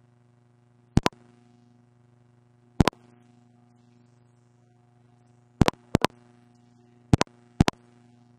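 Six loud, sharp clicks, most in quick doubled pairs, at uneven intervals over a steady low electrical hum.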